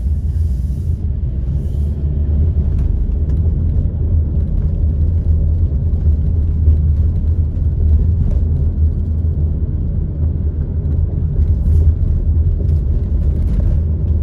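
Steady low rumble of a car being driven, heard from inside the cabin: engine and tyre noise on the road.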